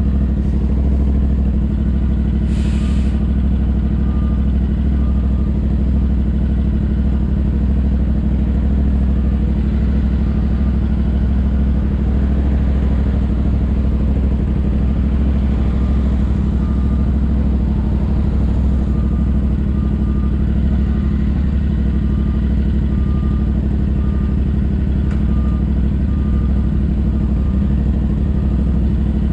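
Royal Enfield Interceptor 650's 648 cc parallel-twin engine running through an aftermarket JVK exhaust, on the move. It holds an even exhaust note without any big revs.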